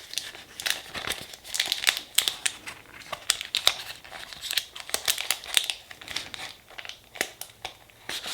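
Packaging crinkling and rustling in the hands in irregular bursts, with small clicks and crackles, as a nail stamper and scraper are handled and taken out of their packets.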